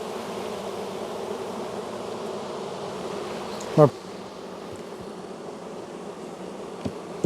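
Steady, dense buzzing of a large, crowded honey bee colony with the hive open. A little under four seconds in there is one brief, louder buzz that drops quickly in pitch.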